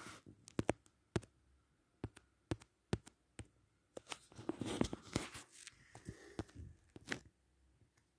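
Handling noise from a smartphone held close to its microphone: irregular clicks and taps, with a longer rustle about four to five seconds in.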